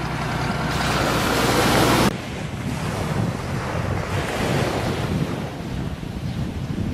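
Wind buffeting the microphone over the sound of surf on a beach, a steady rushing noise with a low rumble; the noise drops abruptly about two seconds in, then the wind and surf go on more evenly.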